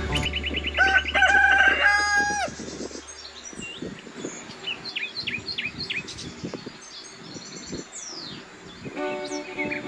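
A rooster crowing once, a cock-a-doodle-doo of about two seconds, followed by small birds chirping sparsely.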